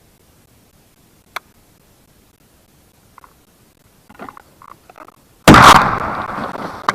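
A single sharp click, then about four seconds later one loud gunshot that rings on and dies away over about a second and a half.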